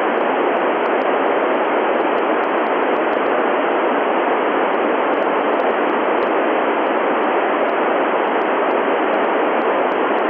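Steady, loud hiss of an FM amateur radio receiver tuned to the ISS downlink on 145.800 MHz with its squelch open and no signal coming in: no one is transmitting from the space station.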